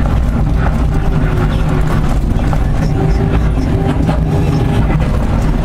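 Liebherr 944C tracked excavator's diesel engine and hydraulics running under digging load, heard from inside the cab, with a pump whine that shifts up and down in pitch. Crushed rock scrapes and clatters against the bucket as it fills.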